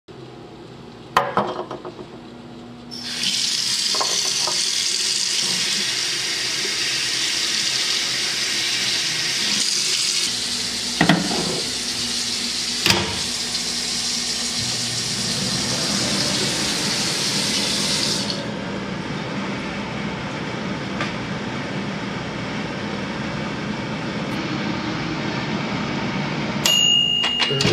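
Tap water running into a bathroom sink. The water starts about three seconds in and turns softer around fifteen seconds later, with a few sharp knocks along the way and a clink near the end.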